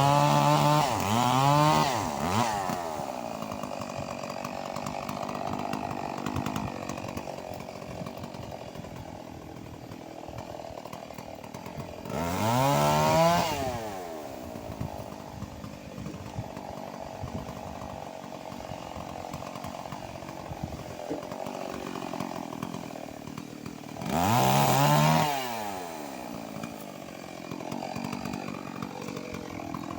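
Stihl MS 381 two-stroke chainsaw revving up to a high whine in short bursts, about three times and roughly every twelve seconds. In between it runs lower and steadier, as in cutting through the fallen mahogany log.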